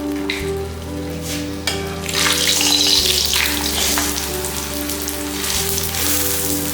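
Egg-stuffed paratha sizzling as it fries in hot ghee or oil in a pan. The sizzle grows louder about two seconds in, over soft background music.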